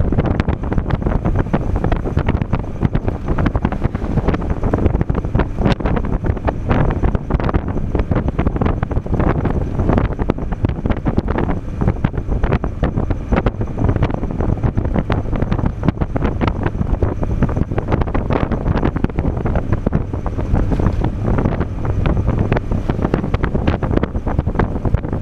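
Heavy wind buffeting the microphone in the open cabin of a convertible on the move, steady throughout, with the car's twin-turbo 363 V8 and road noise running underneath.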